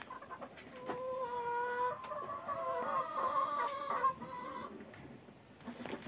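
Domestic chickens making drawn-out clucking calls, several voices overlapping, from about a second in until near five seconds, then fading.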